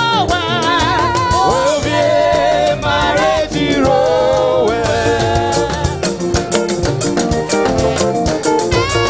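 Upbeat live praise music: a band with a steady drum beat and a lead voice singing a wavering melody.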